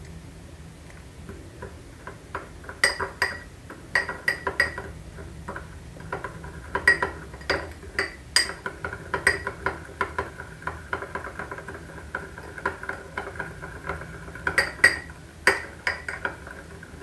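Spoon stirring softened white chocolate and milk in a small glass bowl, clinking against the glass over and over in irregular clusters of quick taps, each with a short ring.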